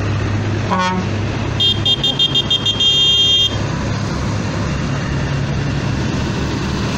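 Passing tractors' diesel engines running steadily. About a second in there is a brief rising note, then a high-pitched horn gives about seven quick toots followed by one longer held blast.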